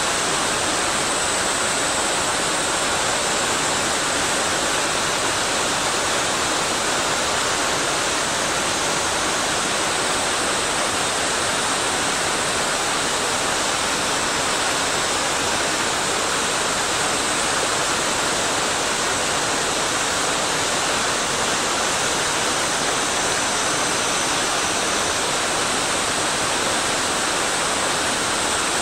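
Mountain stream or waterfall rushing steadily, an even wash of falling and flowing water.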